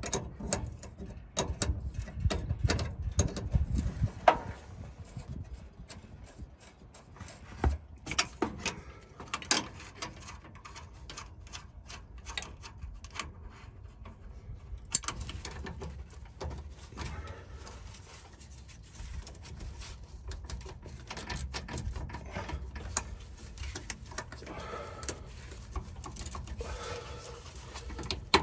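Wrenches clicking and scraping on the steel threaded fittings of a truck's inline fuel filter as they are loosened and the filter is worked free, in many short clicks and knocks.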